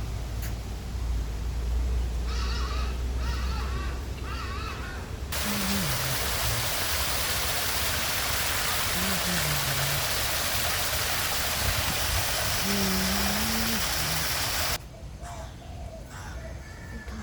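Birds giving wavering calls over a low rumble, then a steady, loud rushing noise that cuts off suddenly near the end, after which thin bird calls return.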